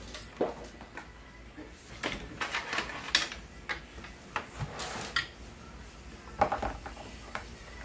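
Irregular clicks, knocks and light clatter of hands handling an inkjet printer's plastic body and lid and its ink-supply tubing, with small clusters of knocks about two to three seconds in and again near the end.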